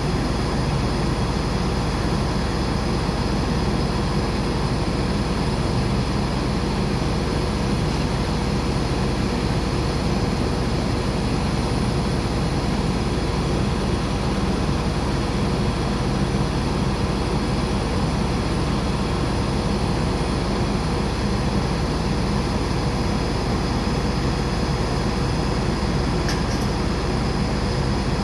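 Air conditioning unit for a Boeing 737 running steadily: a constant rushing blow of air with several steady whining tones, from a low hum to a high whine.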